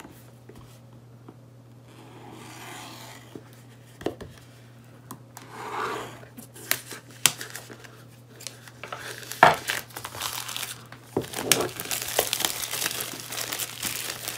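Clear plastic shrink wrap being peeled and torn off a cardboard box, crinkling and tearing. Sparse handling noises at first, then busier from about nine seconds in, with a few sharp crackles; a faint low hum underneath.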